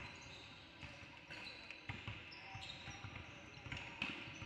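Basketball game play: a ball bouncing on the court, with sharp thuds about a second apart, among short high-pitched squeaks of sneakers on the floor.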